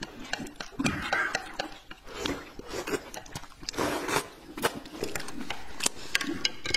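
A person slurping food and sauce straight from the edge of a plate, with wet mouth smacks and a few sharp clicks that come at irregular moments.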